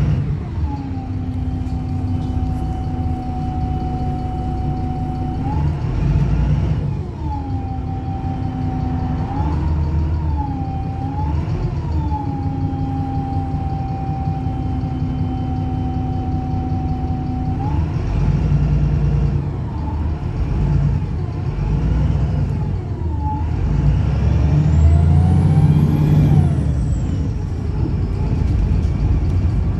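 Wright Pulsar single-deck bus engine running at idle with a steady whine, its revs rising and dropping back briefly a few times. The tone then changes to a rougher drone as the bus gets going, with a whine that rises steeply and then falls away.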